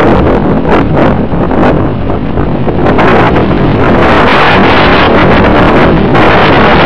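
Loud wind rushing over the microphone of a camera carried on a radio-controlled plane in flight. It flutters in gusts at first, then becomes a steady roar from about halfway in.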